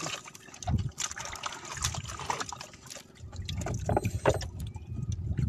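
Water splashing and sloshing around a small wooden outrigger boat, in irregular splashes with a few knocks. A low rumble joins about three seconds in.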